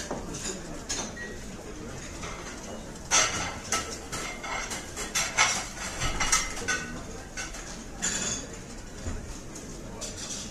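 Plates and cutlery clinking and clattering, with a cluster of sharp knocks in the middle.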